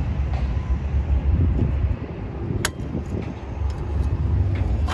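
Two sharp metallic clicks, about two seconds apart, from pliers working on a drum-brake shoe and its hardware, over a steady low outdoor rumble.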